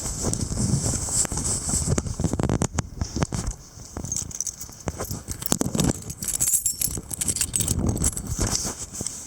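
Strong, gusty wind buffeting the microphone in uneven low rumbling surges, with many short clicks and rattles mixed in.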